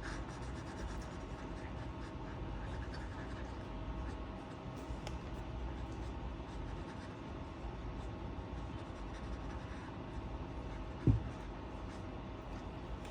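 Colouring strokes scratching steadily on paper. One dull thump about eleven seconds in.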